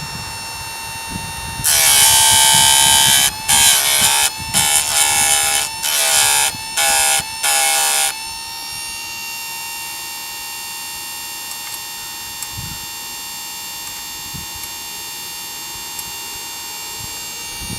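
Harbor Freight electric chainsaw sharpener's motor running with a steady whine. Between about two and eight seconds in, its grinding wheel is brought down onto the saw chain, first in one long pass and then in several short ones, giving a loud harsh grinding each time.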